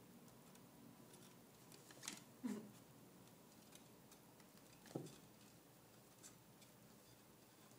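Near silence broken by a few faint scratches and rustles, about two and a half and five seconds in: kittens clawing and shifting in a fabric laundry basket.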